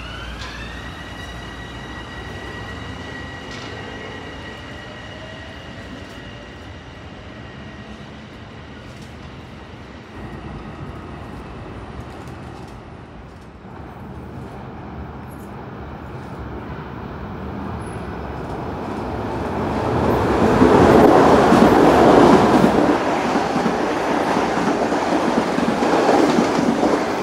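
Metro-North M7A electric train's traction motors whining as it pulls away, the rising pitch levelling off into a steady whine that fades. Later another electric commuter train approaches and runs past the platform at speed, growing loud and staying loud for the last several seconds.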